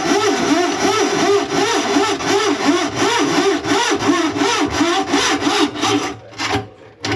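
Drain snake working through a clogged kitchen sink drain line, with a loud rhythmic rasping scrape that rises and falls in pitch in quick repeated strokes and stops just before the end.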